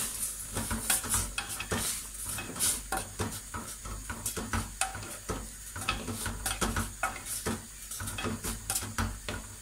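A black cooking spoon stirring a mushroom and bamboo-shoot curry in a stainless steel stockpot, with frequent irregular clinks and scrapes against the pot's sides.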